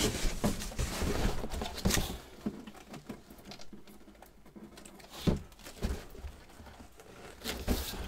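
A large cardboard box being handled and shifted: cardboard scraping and rustling with a few knocks, busiest in the first two seconds, quieter in the middle and picking up again near the end.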